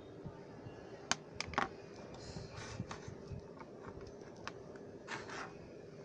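Handling noise from an indoor TV antenna and its coiled cable: a few sharp clicks and light knocks, three in quick succession about a second in, with soft scuffs and rustles in between.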